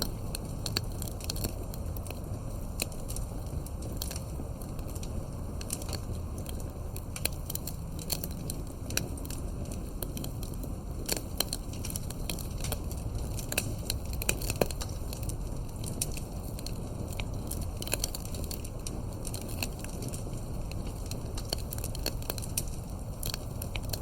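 Fireplace crackling: irregular sharp pops and snaps over a steady low rumble.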